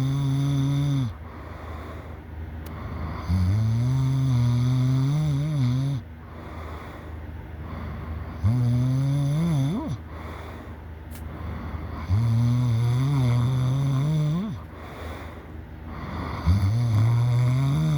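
A person snoring loudly in a steady rhythm: a long, droning snore about every four seconds, each lasting two to three seconds, with quieter breathing between them. A few of the snores waver and rise in pitch as they end.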